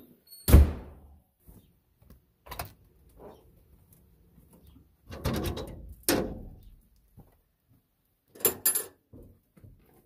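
A door thumps shut about half a second in, the loudest sound. Later come knocks, a scrape and metal clanks as the latch and heavy steel firebox door of an outdoor wood-burning furnace are worked open, with two quick sharp clanks near the end.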